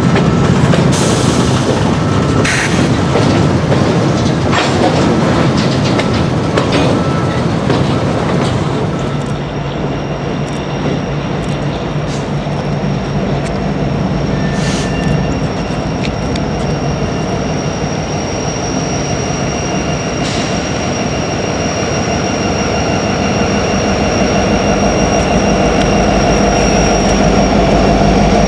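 Freight train rolling past, wheels clicking over rail joints. A thin, steady high-pitched wheel squeal sets in about a third of the way through.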